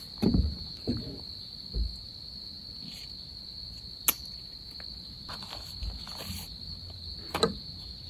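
Steady high-pitched insect chorus, with a few thuds of footsteps on wooden boardwalk planks in the first two seconds. A sharp click about four seconds in and a louder click and rustle near the end come from unhooking a dry bag and recorder from a bungee on a tree.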